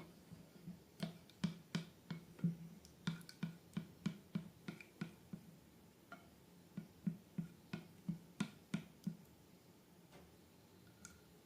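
Slime being squished and pressed by hand, making a run of short sticky clicks and pops. The clicks pause briefly a little past the middle and again near the end.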